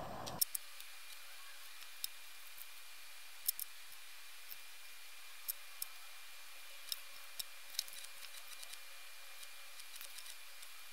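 Scattered small clicks and taps of metal tweezers and fingers handling a plastic scale model kit, over a faint steady hiss with a thin high tone.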